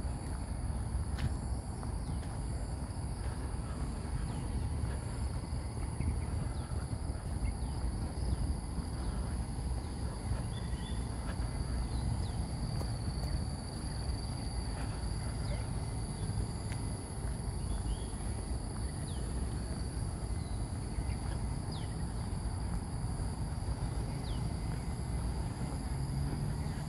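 Insects droning steadily at two high pitches, with short bird chirps scattered throughout, over a constant low rumble.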